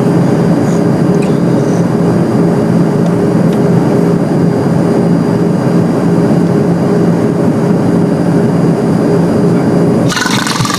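Airliner cabin noise: a loud, steady rushing drone with a constant low hum from the engines. About ten seconds in it cuts abruptly to a brighter, hissier sound.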